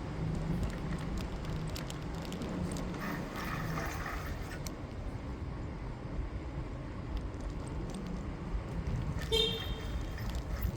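Street ambience heard from a moving bicycle: steady low rumble of wind on the microphone and tyres on the road, with a short high ringing tone about nine seconds in and a few sharp clicks near the end.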